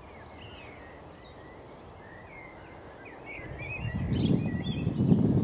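Birds chirping and singing in short phrases. From about three and a half seconds in, an uneven low rumble builds and grows louder, drowning out the birds by the end.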